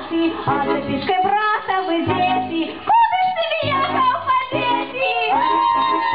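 Women's folk ensemble singing a folk song in chorus, with steady low accompanying notes underneath. About five seconds in, the voices settle onto a long held note.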